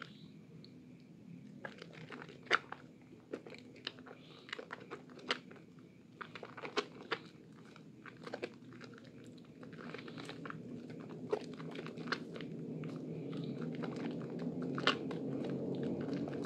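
Hands squeezing and kneading soaked Lervia milk soap in thick lather: irregular crunchy pops and crackles, with a steadier wet squishing that grows louder in the last few seconds.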